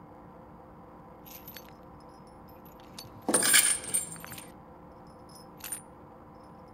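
Heavy metal chain clanking: a faint jingle about a second in, then a loud burst of metallic rattling and clinking a little past three seconds in that dies away over about a second, and one short clink near the end.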